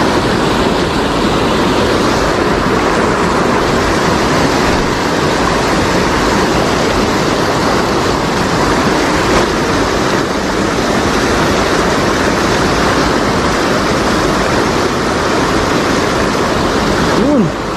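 Loud, steady rush of river water pouring over a low weir and churning around rocks.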